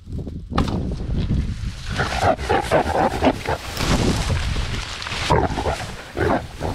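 A wounded feral hog grunting and squealing as it charges, over loud thrashing and crashing through dry marsh grass as a person goes down into it, starting about half a second in.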